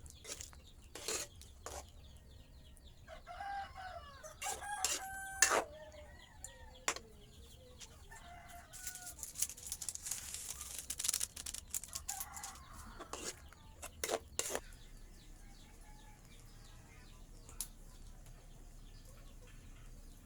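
Chickens clucking and calling in short bursts, mixed with several sharp clicks or knocks.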